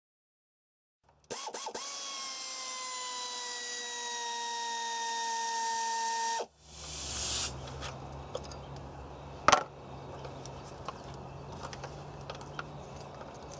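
Power ratchet running for about five seconds with a steady whine that sinks slowly in pitch, then stopping abruptly, as it loosens a bolt on the engine cover. Later a low hum with small ticks and one sharp knock.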